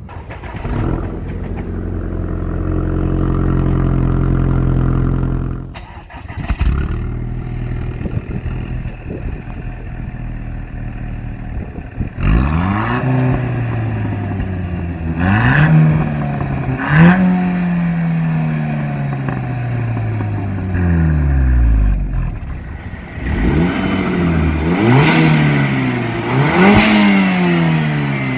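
Audi A4 B7 2.0T turbocharged four-cylinder with a high-flow catalytic converter and downpipe, running and being free-revved. After a steady stretch at the start it settles to idle, then several quick throttle blips rise sharply and fall back to idle.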